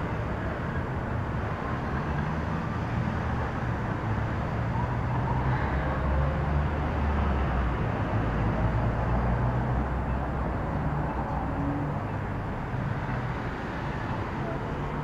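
Street traffic: vehicle engines running and cars passing, a steady low rumble that swells a little in the middle and then eases off.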